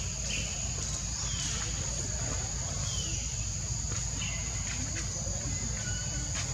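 Steady high-pitched insect drone, typical of crickets or cicadas, over a low steady rumble, with scattered short high chirps and a few brief falling squeaks.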